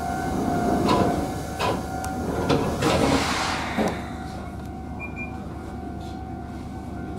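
A Kotoden Kotohira Line electric train standing at a platform: a steady electrical hum, a few sharp clicks and knocks in the first four seconds, and a hiss of air about three seconds in.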